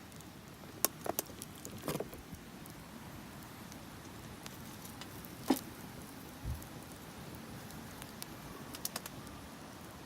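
Burning firewood crackling: irregular sharp pops and snaps over a steady low rush of the fire, the loudest pop about five and a half seconds in. A soft low thump follows about a second later.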